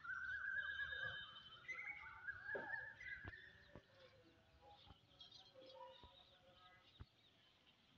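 Faint bird song: a rapid, wavering run of chirps through the first three seconds, then scattered softer chirps with a few soft clicks as it fades.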